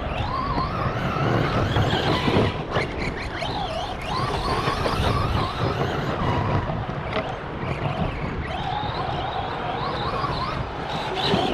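Arrma Big Rock RC monster truck, freshly rebuilt with a new differential, driven hard around a track: its electric motor whine rises and falls repeatedly with the throttle over a steady low rumble.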